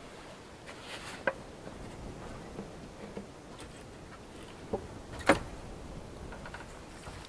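Wooden plank door of a log cabin being opened and shut, with a few sharp wooden knocks and clicks; the loudest knock comes about five seconds in.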